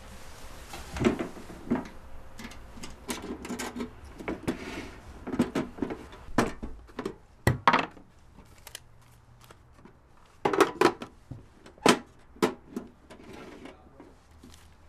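A small lockbox being handled on a table: its latch and lid click and knock as it is opened and shut, with envelopes and papers rustling in between. The sharpest knocks come about a second in, halfway through, and near the end.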